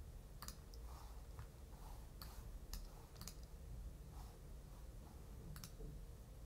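Faint clicks of a computer being worked, about six of them spread irregularly, over a low steady hum.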